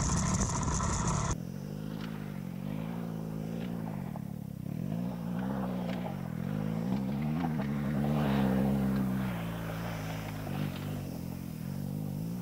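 BMW R 1250 GS boxer-twin engine revving up and down as the motorcycle is ridden off-road, its pitch rising and falling several times. The first second or so is louder, with a hiss over the engine.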